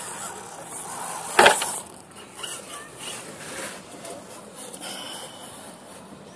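Axial Honcho radio-controlled rock crawler scraping and knocking over rocks, with one sharp knock about a second and a half in.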